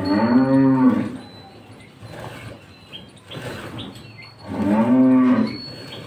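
A cow mooing twice, each low moo lasting about a second, the second coming about four and a half seconds after the first.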